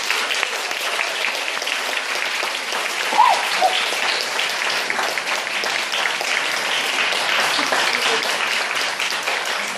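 Audience clapping steadily as a dance performance ends, with a short rising-and-falling cry about three seconds in.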